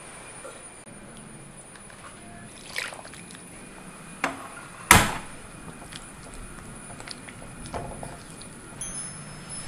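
Wooden spatula scraping and knocking in a metal uruli while mashed dal and coconut paste are stirred, with soft sloshing of the thin mixture. A few scattered knocks, the loudest a single sharp knock about five seconds in.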